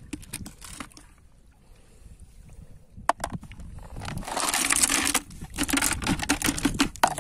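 Sharp scattered clicks and rustling as a plastic lid heaped with gathered sea snails is handled, the shells knocking against the plastic. About four seconds in there is a loud rushing hiss lasting about a second, followed by more clicks and rustling.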